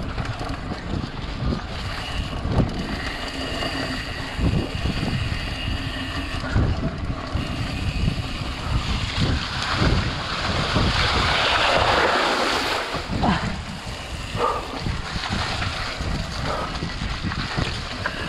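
Mountain bike ridden fast over a dirt trail, heard from a chest-mounted action camera: wind buffeting the microphone with knocks and rattles from the bike over the bumps. About ten seconds in, a few seconds of splashing as the tyres run through a muddy puddle.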